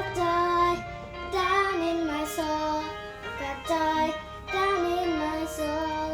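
Music: a child's voice singing a melody in held, stepping notes over backing accompaniment.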